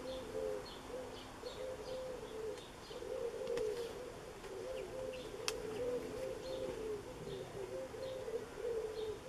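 A dove cooing over and over in short, low phrases, with faint chirps from small birds above it.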